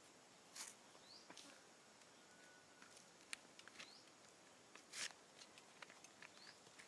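Faint outdoor ambience with a few short, high, upward-sliding chirps and scattered soft clicks and brief rustles.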